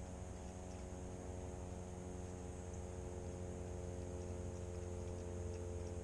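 Steady electric hum of a boat's trolling motor pushing it slowly along the bank, one even tone that does not change.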